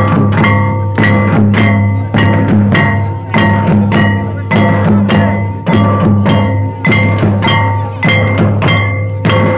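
Santal dance music: drums beating a steady repeating rhythm under a repeating high melody.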